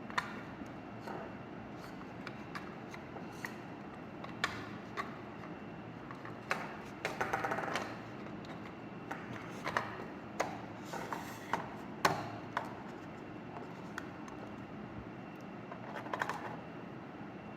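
Light clicks, taps and short rattles of small plastic parts being handled and fitted together while a garden water timer is reassembled, with a longer rattling stretch about seven seconds in and another near the end.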